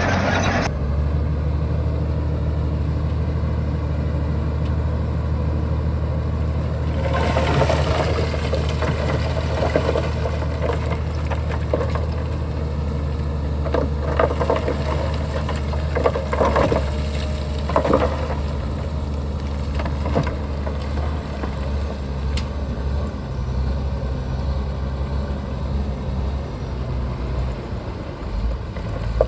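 Shantui bulldozer's diesel engine running steadily. Between about 7 and 18 seconds in there is a stretch of rougher, noisier sound with a few knocks.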